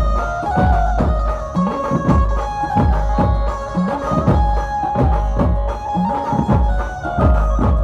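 Background music: a folk-style tune with a hand-drum beat of about two strokes a second under a held melody line.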